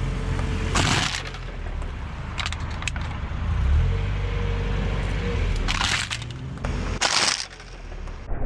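A car tyre rolling over aluminium drink cans and crushing them flat: several sudden loud crunches and cracks, the biggest about a second in and twice more near the end, over the steady low hum of the car's engine.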